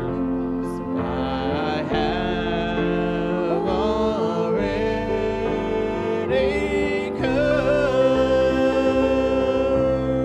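Gospel music: a voice singing a slow melody over instrumental accompaniment, holding one long note over the last few seconds.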